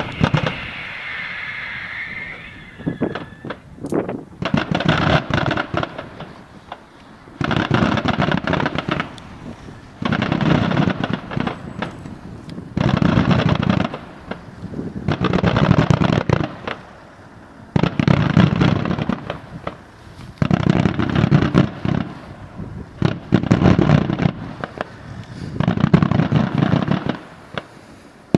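Daytime aerial fireworks going off in repeated volleys. Each volley is a dense, rattling roll of rapid bangs lasting a second and a half to two seconds. A new volley comes about every two and a half seconds.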